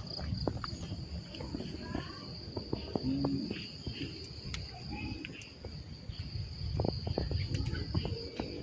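Crickets trilling as one steady high-pitched tone, over a low rumble of wind and handling noise, with scattered short faint chirps.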